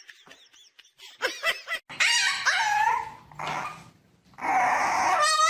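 A dog giving a string of short, high-pitched cries with bending pitch, separated by brief pauses.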